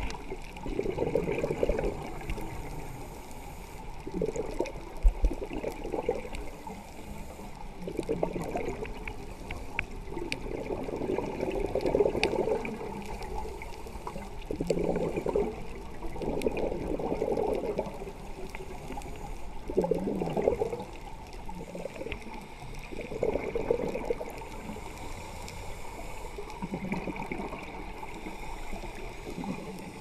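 Scuba diver breathing through a regulator underwater: bubbling bursts of exhaled air every few seconds over a steady low rumble.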